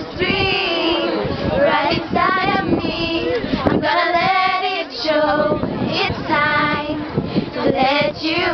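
A small group of teenage girls singing a song together unaccompanied, holding and bending notes with no instruments.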